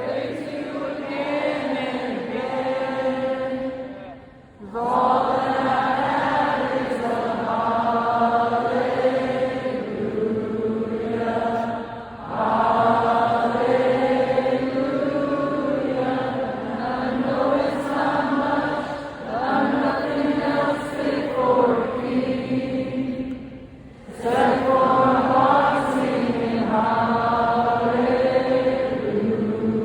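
A crowd of thousands singing a worship song together in long phrases, with short breaks between the lines.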